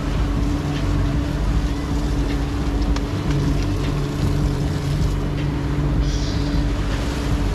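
Boat motor running steadily at cruising speed, with a constant hum and the rush of the churning wake.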